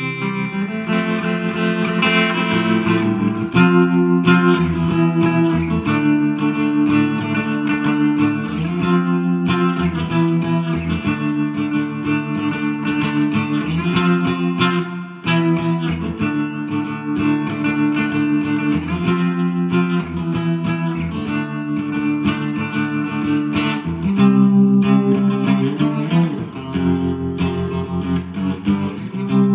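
Electric guitar, a 1983 Squier JV Telecaster, played through a 1963 Selmer Thunderbird Fifty valve amp with 1970s Celestion Greenback speakers: ringing strummed chords that change every second or two.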